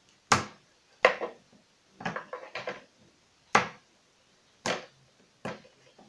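Scissors snipping and clicking at a hard plastic toy capsule as it is cut open: about six sharp snaps, with a quick run of smaller clicks between two and three seconds in.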